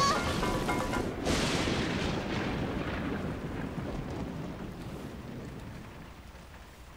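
A thunderclap about a second in, rumbling on and slowly fading away over several seconds amid heavy rain.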